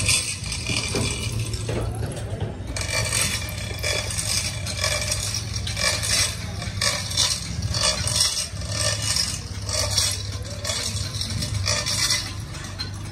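Repeated metallic clinking and scraping as steel lifting chains rattle against a truck's rear axle housing while it is moved, over a steady low hum.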